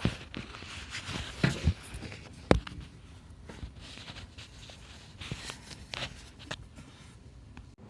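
Handling noises: a few scattered clicks and knocks, the sharpest about two and a half seconds in, over a faint steady background.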